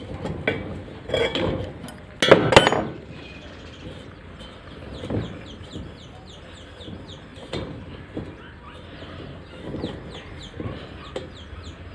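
Chickens clucking, with rapid high chirps throughout. A loud metallic clatter comes about two seconds in and a few softer clicks follow, as a brass hose fitting is worked off an LPG cylinder valve.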